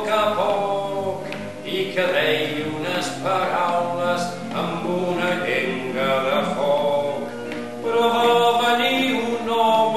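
A man singing a Catalan song in full voice, accompanying himself on acoustic guitar.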